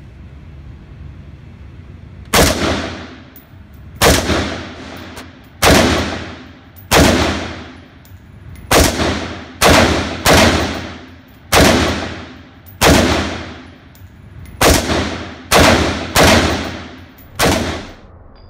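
Heckler & Koch HK 93 semi-automatic rifle in .223 Remington firing thirteen single shots at an uneven pace, about one to two seconds apart. Each shot rings out with a long echo off the indoor range's walls.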